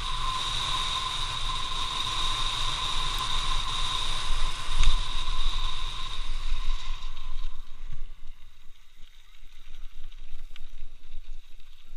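Wind rushing over the camera microphone and tyres rumbling on a dirt road as a bicycle coasts downhill, with a steady high whistle over it; a thump about five seconds in as the wheels hit a bump. As the bike slows after about seven seconds the whistle and wind die away, leaving the quieter crackle of tyres rolling on gravel.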